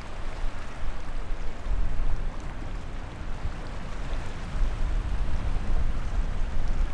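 Unsteady low rumble of wind buffeting the microphone over a steady hiss of water from the bow wave of a small container ship passing close by.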